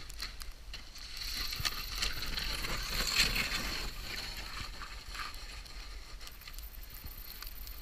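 Upturned snowmobile tumbling and sliding down a snowy slope: a scraping, rushing noise that swells about a second in and is loudest around three seconds, with scattered knocks.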